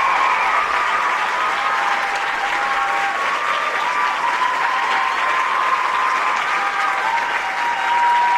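A theatre audience applauding steadily, with a few faint steady tones held underneath.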